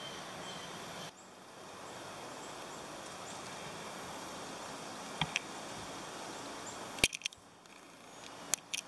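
Steady outdoor forest ambience with a few faint high bird chirps. From about five seconds in come several sharp snaps and clicks, the loudest a quick cluster about seven seconds in and more near the end.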